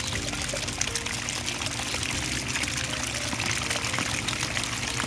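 Dirty backwash water from an Xtreme Bio Filter gushes steadily out of a corrugated drain pipe and splashes into a basin. The backwash is flushing trapped dirt out of the filter.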